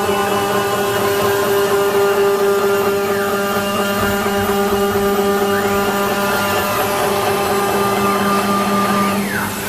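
A 1325 CNC wood router running: a steady spindle whine with a layered mechanical hum, and a higher whine that dips and rises again every three or four seconds as the machine moves.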